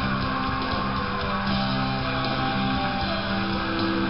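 Instrumental band music led by guitar, in held notes with no singing, played through a television's speaker.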